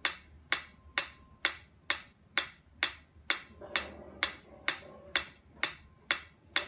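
A white pyramid-shaped mechanical metronome ticking steadily, with sharp even clicks about two a second.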